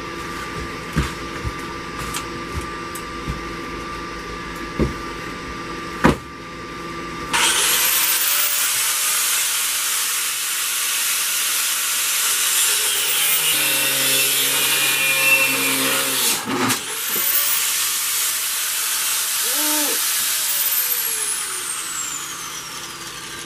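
Angle grinder with a cutoff wheel cutting sheet steel. A lower steady sound for the first several seconds, then from about seven seconds in a loud grinding hiss as the wheel cuts the metal, breaking off briefly about two-thirds through, then cutting again, with a falling whine near the end.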